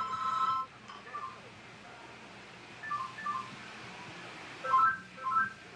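A mobile phone's ring cuts off just after the start. Then the phone's keypad beeps in short two-tone tones as its buttons are pressed: a few around one to three seconds in, and a quicker run of louder beeps near the end.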